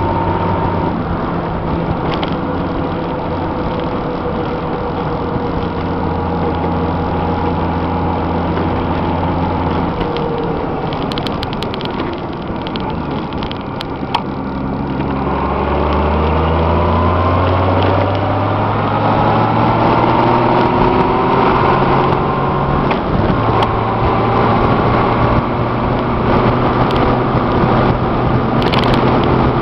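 Honda Gold Wing GL1500 under way: the flat-six engine over tire and wind noise, steady at first, easing off about ten seconds in, then pulling again with a steadily rising pitch from about fifteen seconds. The bike is on new Kenda Kruz tires, and the rider suspects they are making a noise.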